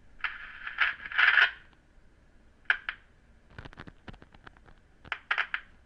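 Transistor radio's small speaker cutting in and out in short crackly bursts, with sharp clicks between. This is an intermittent connection, which the repairer traces to badly soldered joints or a hairline crack in the circuit board that only makes contact when the board is bent.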